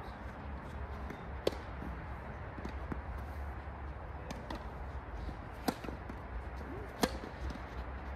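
Tennis ball struck by rackets on court: a few sharp pops spaced unevenly, with fainter knocks between and the loudest near the end, over a steady low rumble.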